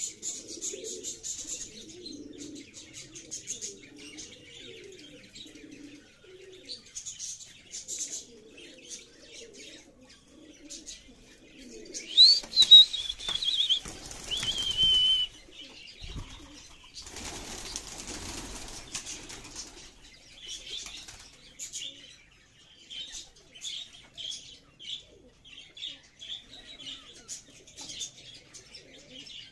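A flock of domestic fighter pigeons: low cooing over the first several seconds, then loud flurries of flapping wings as birds take off and land, the loudest about twelve seconds in and again around seventeen seconds. A high falling call sounds during the first flurry, and short high chirps come and go throughout.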